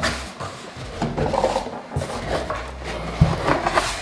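Flaps of a large cardboard shipping box being pulled open and handled, with cardboard scraping and rubbing and a few knocks. The sharpest knock comes about three seconds in.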